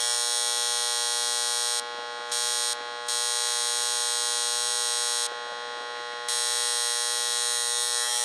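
Late-1960s General Electric electric alarm clock's electromechanical alarm buzzer going off, a very loud, steady buzz. Three times the harsher, higher rasp of the buzz drops away and leaves a softer hum: briefly about two and three seconds in, and for about a second past the five-second mark.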